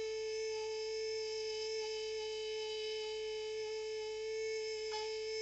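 Small electric motor of a handheld cleaning brush tool running at a steady whine, one strong pitch with fainter overtones above it.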